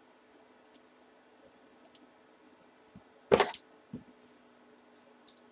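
Quiet room background with a faint steady hum and a few small clicks, broken about three and a half seconds in by one loud, short knock, then a smaller one half a second later.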